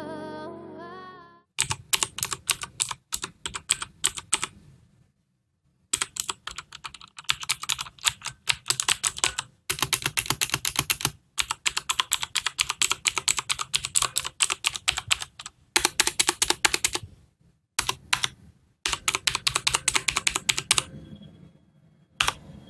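Typing on a HyperX Alloy FPS Pro mechanical keyboard with Cherry MX Blue switches: rapid runs of clicky keystrokes in bursts, with short pauses between them.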